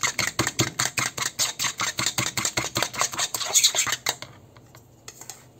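A utensil beating egg and cornmeal batter in a bowl, rapid clicking strokes of about six a second that stop about four seconds in.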